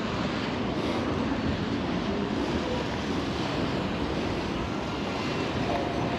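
Wind blowing hard across the microphone: a steady rushing noise with low, uneven buffeting rumble underneath.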